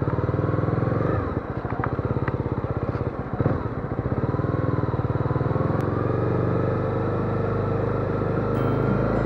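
Honda CB250R's single-cylinder engine running while riding, a quick firing pulse with road and wind noise. The engine note drops briefly a little over a second in and again about three seconds in, then picks up.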